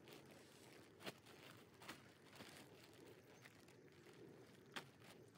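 Faint rustling and crinkling of a plastic compost bag being handled and emptied onto a bed, with three short sharp clicks, the last near the end.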